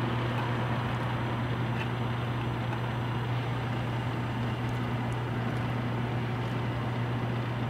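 Steady street ambience: a constant low hum under an even wash of traffic-like noise.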